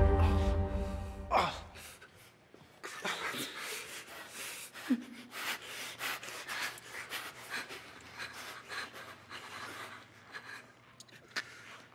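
Music fading out in the first two seconds, then irregular breathy gasps and panting of stifled laughter, with a short squeak of a voice about five seconds in.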